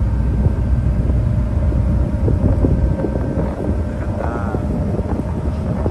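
Car ferry's engines running with a steady low rumble and faint hum, with wind buffeting the microphone on the open car deck.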